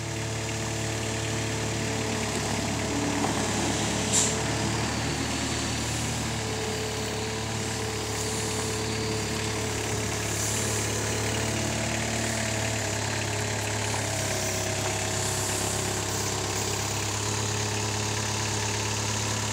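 Moffett M5 NX truck-mounted forklift's engine running steadily, with one brief click about four seconds in.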